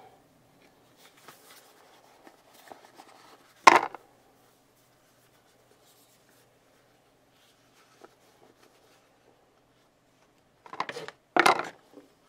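Hands handling a cardboard presentation box: soft paper rustling as a white insert is lifted out, a sharp knock about four seconds in, and two louder knocks near the end as the box is handled and set on the desk.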